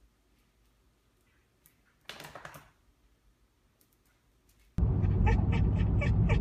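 Near-quiet room with one brief soft noise about two seconds in, likely from the dogs. Near the end it cuts suddenly to a loud ride inside a moving car, with rapid, evenly spaced pulses on top.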